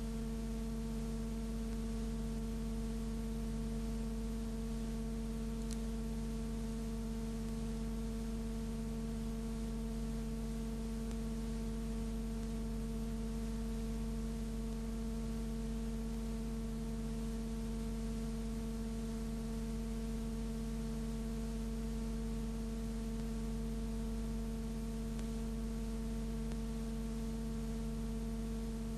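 Steady electrical hum made of several fixed tones over a faint hiss, unchanging throughout; no tram or street sound can be made out.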